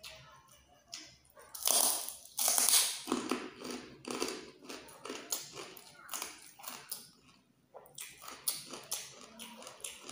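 Close-miked crunching and chewing of crispy chicharon: two loud crunching bites about two seconds in, then a run of crackly chews that pause briefly and resume near the end.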